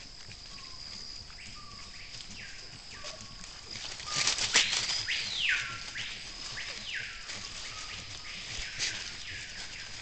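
Herd of white-lipped peccaries foraging in leaf litter, with a burst of sharp clicks and a louder rising-and-falling call about four seconds in. Behind it are a steady high whine and short falling whistled calls repeated about once a second.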